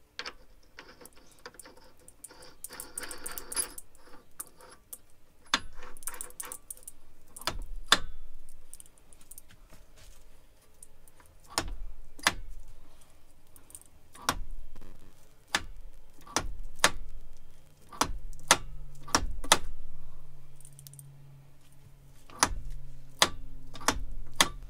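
Sharp metallic clicks and clacks at irregular intervals, with a few short rattles, as the collet closer and draw tube on an Atlas 10-inch lathe are worked and adjusted by hand. A low steady hum comes in about two-thirds of the way through.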